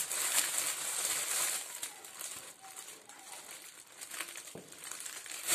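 Plastic food bag crinkling as hands gather and twist its neck shut to fasten it. The crinkling is louder in the first couple of seconds, then softer, with a small tap about four and a half seconds in.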